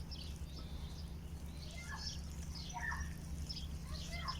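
Small birds chirping: many short, scattered calls over a steady low hum.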